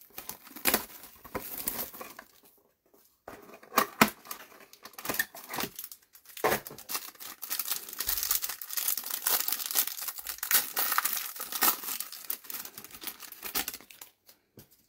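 Plastic wrapping around trading cards being crinkled and torn in irregular handfuls, with sharp crackles and short pauses, busiest in the second half.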